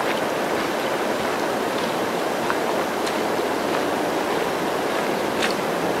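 Steady rain falling in a forest, an even hiss, with a few faint ticks.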